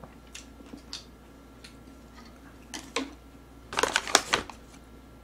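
Close-miked eating at the table: a few faint clicks, then about four seconds in a short cluster of louder clicks and clatter as chopsticks knock against the stainless steel pot of gomtang.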